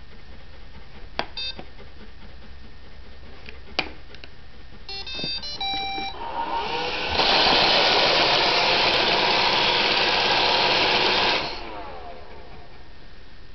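Roomba robot vacuum clicking and playing short runs of beeps, then its vacuum motor spins up and runs loud for about four seconds before cutting out abruptly. The erratic start-stop behaviour is a malfunction, which the owner calls a seizure and links to a firmware update.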